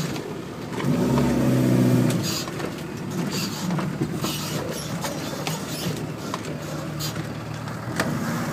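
Land Rover Defender 90's diesel engine pulling hard for about a second, then running on over a rough dirt track, with scattered knocks and rattles as the vehicle goes over bumps.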